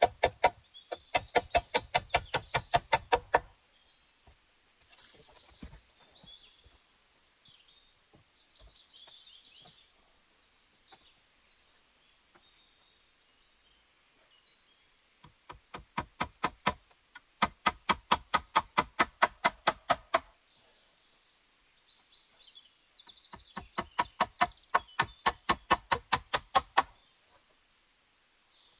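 Three runs of rapid, evenly spaced knocks, about four or five a second, each lasting a few seconds: one at the start, one in the middle and one near the end. Birds chirp faintly in the pauses.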